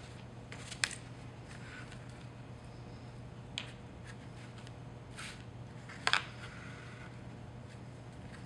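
Yarn being handled and drawn across the warp strings of a cardboard loom: soft rustles and three light clicks, the loudest about six seconds in, over a faint steady hum.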